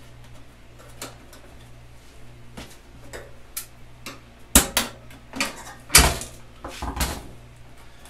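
Plastic clicks and snaps as a flat-blade screwdriver pries apart the clip-together plastic panels of a microwave door. A scatter of light knocks, with the two loudest sharp snaps about a second and a half apart past the middle.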